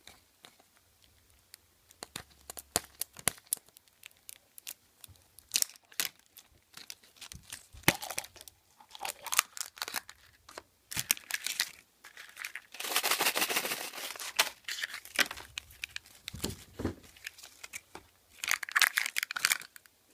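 Plastic wrapping crinkling and tearing as a plastic surprise egg is unwrapped and opened, with scattered clicks and rustles of handling. The longest stretch of crinkling comes about two-thirds of the way in, and there is another shorter one near the end.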